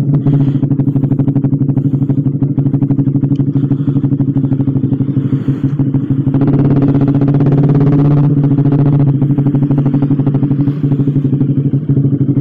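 Suzuki GSX-R150's single-cylinder engine running at low revs through an aftermarket racing exhaust, with a steady rapid pulsing beat. It gets louder for about three seconds, starting around six seconds in, then settles back.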